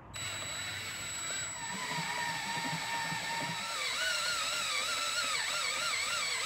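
Electric drill running steadily with a high motor whine, its greased twist bit boring a pilot hole into an aluminium cylinder head. A wavering squeal from the cut grows stronger in the second half.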